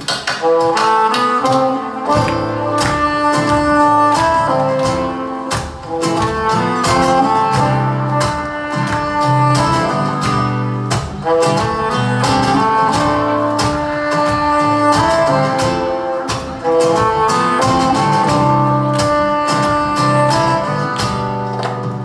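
Live band playing an instrumental break of a pop-rock song: strummed acoustic guitar over bass and drums, with a held melody line on top. The music is loud and runs without singing.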